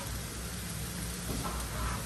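Chopped tomatoes, peppers and onions sizzling steadily in a frying pan over a gas burner, with a spatula starting to stir them near the end.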